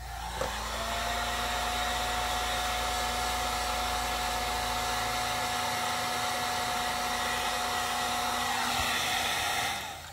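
Heat gun spinning up just after the start, then running with a steady hum and rush of air, and switched off near the end. It is heating a plastic model truck-bed side to soften it for denting.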